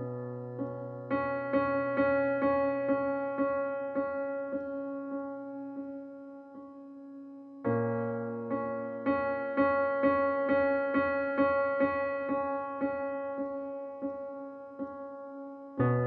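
Background music on a piano-like keyboard: a gentle run of repeated notes, two or three a second, over a low held chord that starts again about halfway through and once more at the very end.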